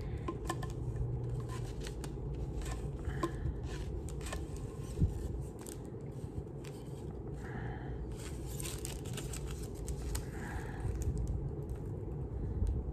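Hands working at a small plastic thermometer and its paper: irregular light clicks, scrapes and tearing as a stuck paper piece is picked and pulled out. A low steady hum runs underneath.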